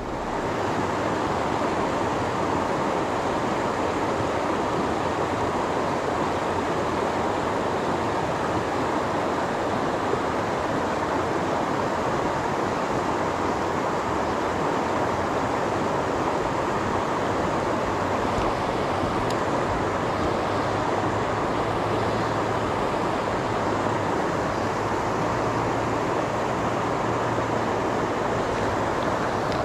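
Fast river current rushing steadily, an even wash of water noise.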